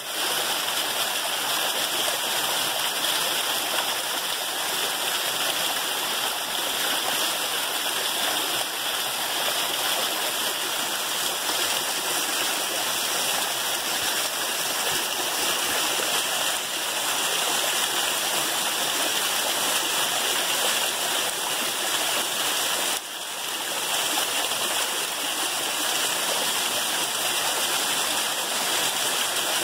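Small waterfall pouring over boulders and splashing onto the rocks below: a steady rush of falling water.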